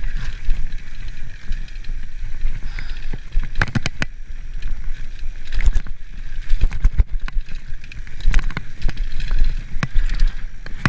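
Mountain bike riding down a dirt singletrack: tyres rolling over dirt and small rocks, with frequent sharp knocks and rattles from the bike and a steady low rumble.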